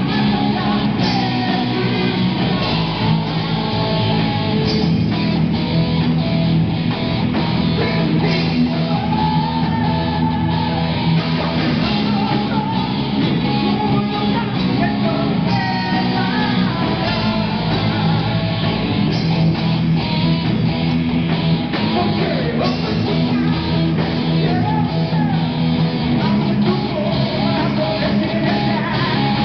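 Live heavy rock band playing: electric guitars and a drum kit, with a singer shouting into a microphone through the PA.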